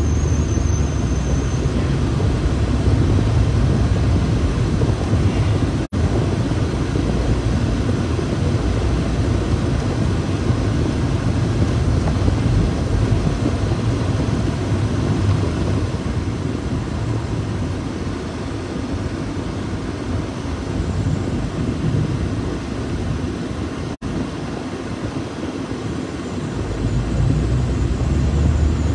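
A car running, a steady low rumble with no pauses apart from two split-second dropouts, one about six seconds in and one about five seconds before the end.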